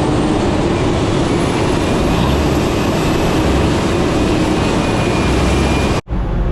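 Heavy farm machinery running steadily and loudly, a silage truck working behind a forage harvester in a corn field. The sound cuts off abruptly about six seconds in, and a different engine sound follows.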